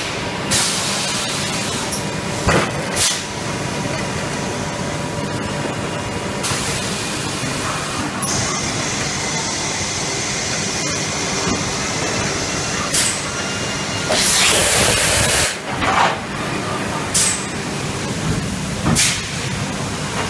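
RP Injection 270 PM-CE PET preform injection moulding machine running, with a steady mechanical noise. Sharp hisses of compressed air break in again and again; the loudest lasts about a second and a half, about three-quarters of the way through.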